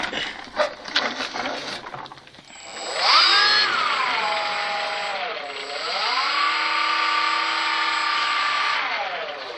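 RC Cessna model plane's motor and propeller throttling up for taxiing about two and a half seconds in, easing back briefly, rising again and holding a steady whine, then winding down near the end. A few clicks and knocks come before it.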